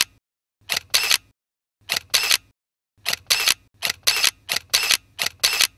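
SLR camera shutter firing again and again, each shot a quick double click of mirror and shutter. The shots come about once a second at first, then about twice as fast from a little past halfway.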